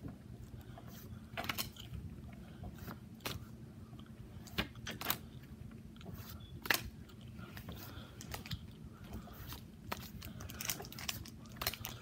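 Pokémon trading cards being handled and flipped through by hand: irregular crisp snaps, clicks and rustles, over a faint steady low hum.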